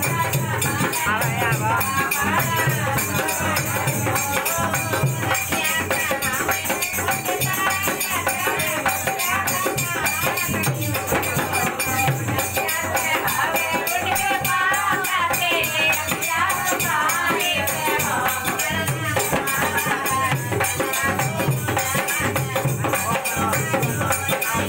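Live dance music: a dholak barrel drum played by hand, keeping a regular beat under a singing voice, with a steady jingling rattle over it.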